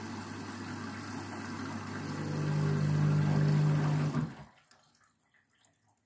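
Front-loading washing machine mid-wash: a steady motor hum under wet towels sloshing in the drum's water, louder from about two seconds in. The sound cuts off suddenly about four seconds in.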